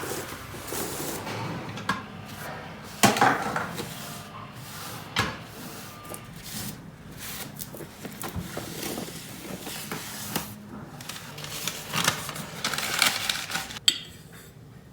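Irregular knocks, rubs and clatters of household things being handled and put away while tidying up. The loudest knock comes about three seconds in, and it goes quiet shortly before the end.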